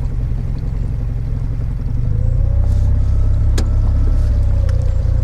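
Small outboard motor pushing an aluminium jon boat under way, a steady low rumble that grows louder from about two seconds in with a faint whine over it, and one sharp click about halfway through.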